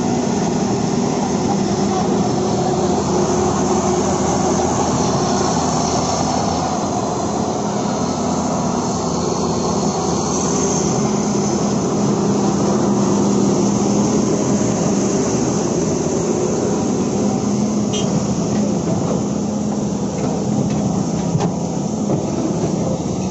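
Caterpillar 320D2 hydraulic excavator's diesel engine running steadily.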